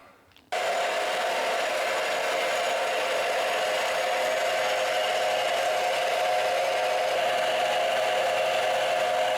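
A power tool running steadily as it cuts a steel tie-rod adjuster sleeve in half. It starts about half a second in and keeps an even pitch throughout.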